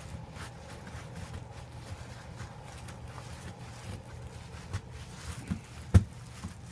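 Hands scooping and packing snow: scattered soft scrapes and small knocks, with one sharp thump near the end.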